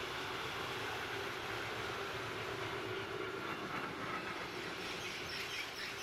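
Train passing, its wheels rolling steadily on the rails with a constant hum, and a few short high chirps near the end.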